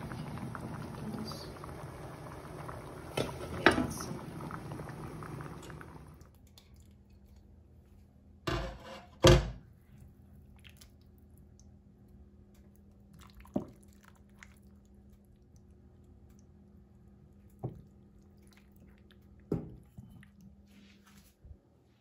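Pot of spaghetti at a rolling boil, water bubbling steadily, until the sound cuts off about six seconds in. Then a few knocks and clinks of kitchen utensils against cookware, the two loudest close together near the middle, a few lighter ones later.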